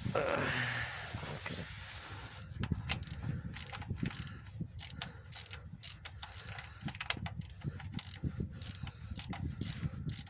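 Socket ratchet clicking in quick runs as the oil pan drain plug is backed out, after a brief rustle at the start.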